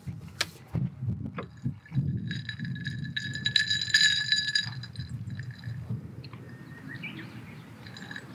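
A drinking glass clinking and ringing as it is handled, with several clinks from about two seconds in that fade out after about three seconds.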